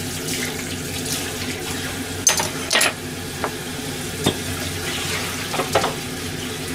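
Kitchen tap running into a stainless steel sink as things are rinsed. Several sharp clinks of dishes and utensils are handled in it, the loudest pair a little over two seconds in.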